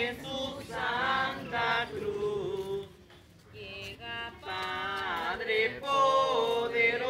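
A group of people, men and women, singing a Spanish-language religious hymn in long held notes, with a short break about three seconds in.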